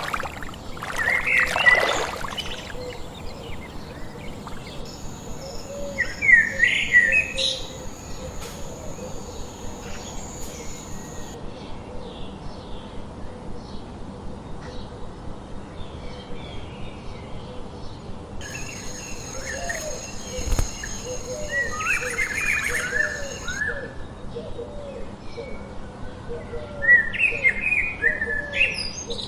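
Several songbirds singing in short, quick phrases, the loudest about a second in, around six seconds in, in the middle of the twenties and near the end. A lower call repeats about once a second beneath them for long stretches.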